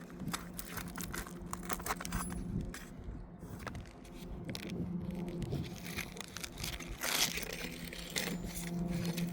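Asphalt roof shingles scraping and crackling as they are pried and lifted during a repair, with many small clicks, over a steady low hum.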